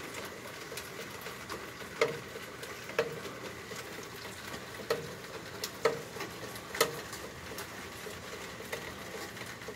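Rain pattering steadily on a wet yard and patio, with a few louder single drops striking a hard surface at irregular intervals of about a second.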